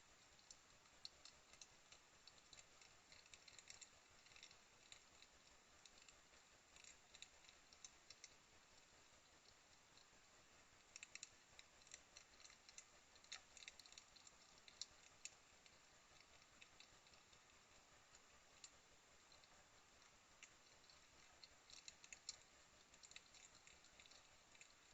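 Faint, irregular clusters of small crisp clicks and crunches, typical of hedgehogs chewing dry food, over a low steady hiss.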